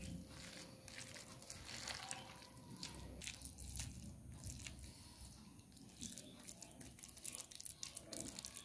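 Faint wet squelching and many small irregular clicks of bare hands kneading and squeezing a mashed potato mixture, bound with egg and cornflour, in a bowl.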